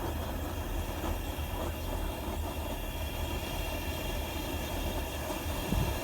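High-pressure propane jet wok burner running with its flame turned up: a steady low rumble with hiss, from the gas fed at raised regulator pressure. A couple of brief low thumps near the end.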